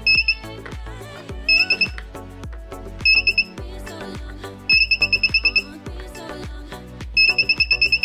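Small buzzer on a breadboard IR remote tester beeping in stuttering high bursts, pulsing about nine times a second, each time the tester's TSOP4838 infrared receiver picks up a remote-control button press. There are five bursts, and the last two are longer, about a second each.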